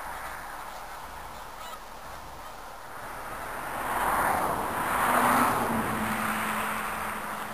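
Large flock of snow geese calling together: a dense chorus of many overlapping honks that swells louder about four seconds in.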